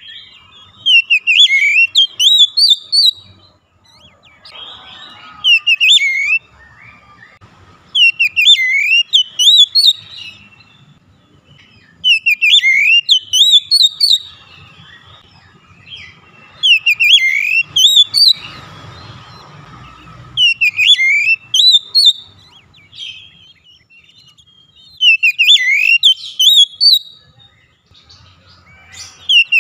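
Oriental magpie-robin (kacer) singing: a loud phrase of quick whistled notes sweeping up and down, repeated about every four seconds with short quiet gaps between.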